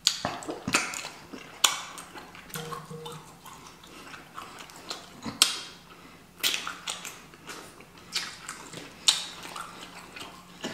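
Close-miked eating: wet chewing and lip-smacking, with sharp mouth smacks at irregular intervals.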